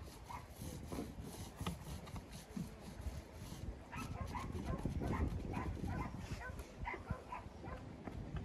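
Short animal calls repeated many times, rising and falling in pitch, most of them in the second half, over a low steady rumble.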